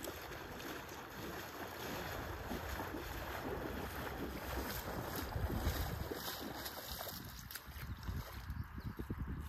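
Wind buffeting the microphone in uneven gusts, over a steady rushing noise.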